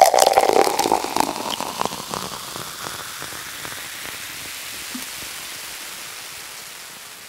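Vita Malta, a carbonated malt drink, being poured, the pour ending about a second in, then the drink fizzing with an even hiss that fades slowly.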